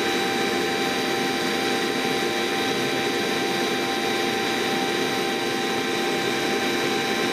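Electric motor-generator set running steadily under an electrical load: a constant machine hum made of several steady tones, from low up to a high whine.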